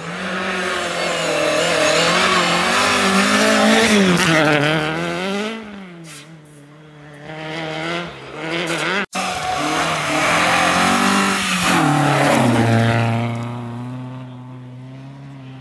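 Historic rally car engines revving hard as they pass on a snow-covered stage, the pitch climbing and dropping with gear changes. The sound breaks off sharply about nine seconds in, then another car revs high before settling into a steady lower hum near the end.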